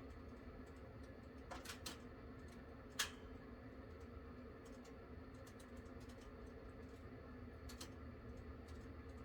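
Firewood crackling in a camping wood stove: scattered light ticks and pops, with one sharper pop about three seconds in, over a faint steady low hum.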